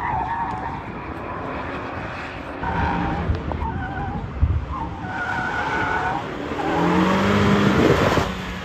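A car's tyres squeal in repeated bursts as it is flung through a tight cone slalom on asphalt. Near the end, its engine revs up in a rising note as it accelerates out.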